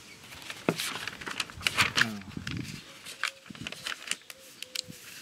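Paper rustling and crackling as a furniture assembly instruction booklet is handled and its pages turned, with a brief vocal sound about two seconds in.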